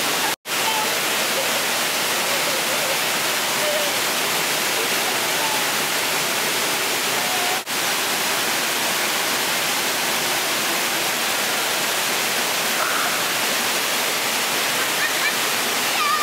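Waterfall cascading over rocks: a steady, loud rush of water, with faint voices now and then. The sound cuts out abruptly for a moment about half a second in and dips briefly about halfway through.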